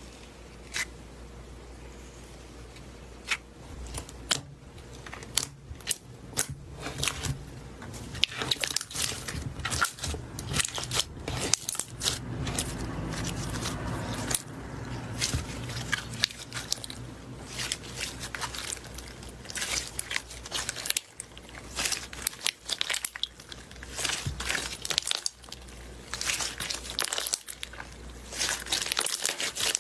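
Slime being squeezed and worked by hand, making sharp clicking pops and crackles: a few scattered pops at first, then dense crackling.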